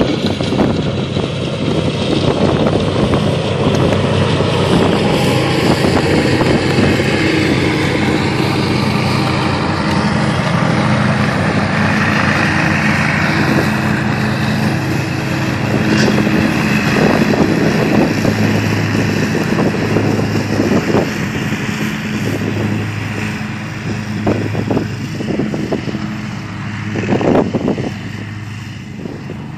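Hustler Super Z zero-turn mowers running steadily at full throttle while cutting tall dry grass, fading somewhat near the end.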